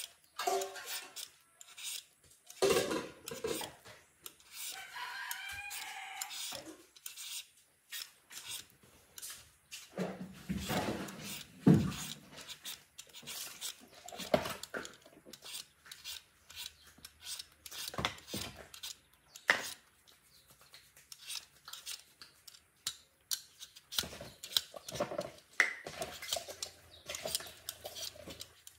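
A rooster crows once, about five seconds in, over scattered short clicks and knocks, with a heavier thump near the twelve-second mark.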